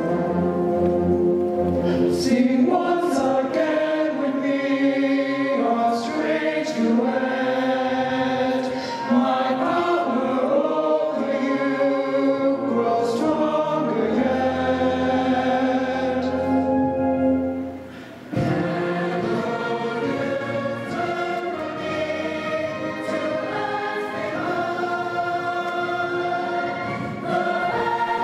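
A choir of mixed voices sings a musical-theatre number in full harmony over band and keyboard accompaniment. The music breaks off briefly about eighteen seconds in, then comes back in strongly.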